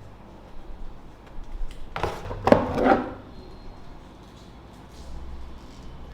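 Box and packaging being handled during an unboxing: light handling noise, then a cluster of knocks and scrapes about two to three seconds in.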